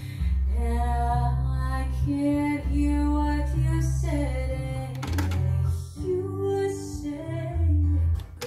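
Music with a female singer over a steady bass line, played back from a cassette on a Pioneer CT-W204 twin cassette deck. A few sharp clicks from the deck's transport buttons come about five seconds in, and again near the end, where the music briefly dips.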